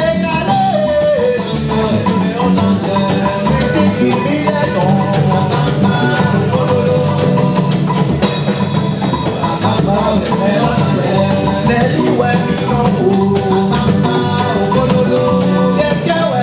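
Music: a sung melody over a steady, driving drum beat with bass and other instruments, playing continuously.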